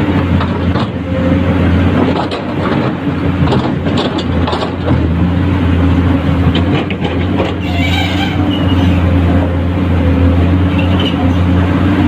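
Excavator diesel engine running steadily under work, with scattered knocks and clatter and a brief high squeal about eight seconds in.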